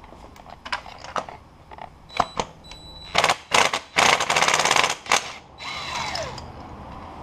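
Cordless 1/4-inch impact driver hammering on a spark plug to loosen it: a few clicks, then two short bursts, then a longer burst of about a second. A falling whine near the end as the driver winds down.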